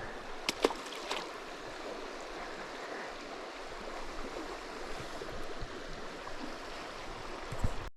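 River water running steadily, an even rush, with a few light clicks in the first second.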